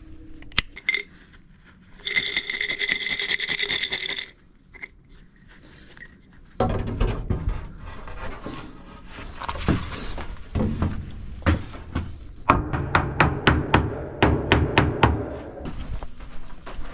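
Tools working on wood. A small electric tool motor whines steadily for about two seconds, then comes scraping and knocking on wood, then a quick even run of about a dozen knocks near the end.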